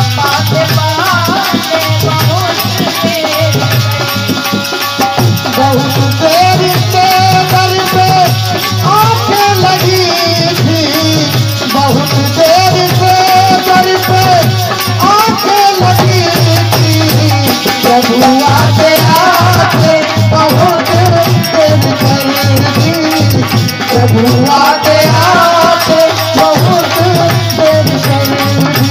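Hindi devotional song music: a wavering melody line over a steady drum beat with rattling, shaker-like percussion.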